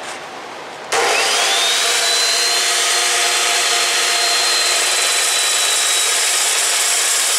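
Metal-cutting chop saw starting about a second in, its whine rising as the blade spins up, then running steadily as it cuts through 1/8-inch aluminum flat bar.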